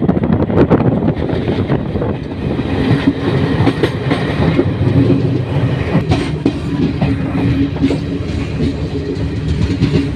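Passenger train heard from on board its coach while running: a steady rumble with the clickety-clack of wheels over rail joints, and a steady low hum through the middle.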